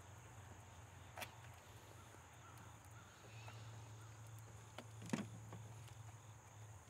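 Near silence with a steady low hum, broken by two faint, sharp clicks, about a second in and again about five seconds in, as hands work the plastic fuel injector connectors on the engine.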